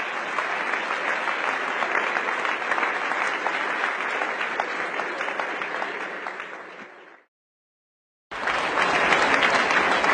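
Large audience applauding, a dense wash of many hands clapping. The applause fades out about seven seconds in, and after a second of silence a new round starts abruptly.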